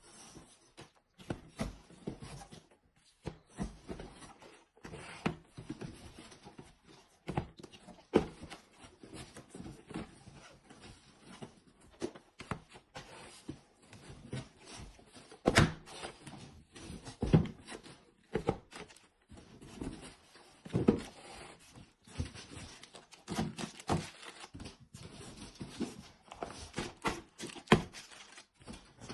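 Small cardboard phone boxes being lifted out of a shipping carton and set down on a wooden tabletop: irregular knocks and thunks, with cardboard rustling between them.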